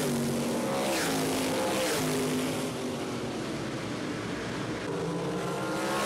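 Winged 360 sprint cars' V8 engines running at full throttle as a pack passes on a paved oval. The engine note dips as the cars pull away down the straight, then grows again near the end as the next cars approach.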